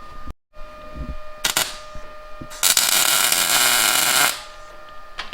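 Welder tack-welding steel: a short crackle of arc about a second and a half in, then a longer crackling weld of about a second and a half.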